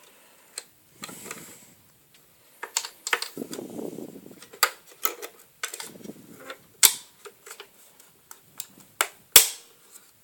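Irregular sharp clicks and knocks, about a dozen and unevenly spaced, from hard parts being handled. Between them come a few soft, muffled rustling passages. The loudest knock comes near the end.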